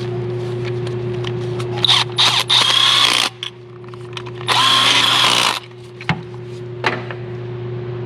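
Power tool run in two bursts of about a second each, driving the 10 mm nuts down onto a new relay, over a steady low hum.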